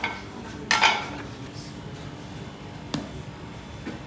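Ceramic plates and bowls clattering as they are lifted off the dough sheet covering a pilaf cauldron and set down. The loudest clatter comes just under a second in, with a sharp single click about three seconds in.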